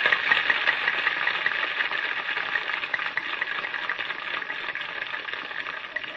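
Crowd applauding, a dense crackle of many hands clapping that starts abruptly and slowly dies down near the end.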